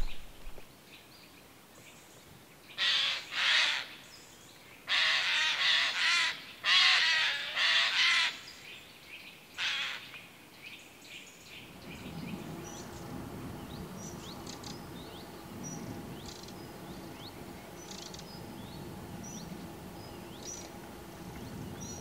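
About seven harsh, hoarse calls from a corvid, in groups between about 3 and 10 seconds in. From about 12 seconds on, a steady low background noise with faint, short high bird chirps.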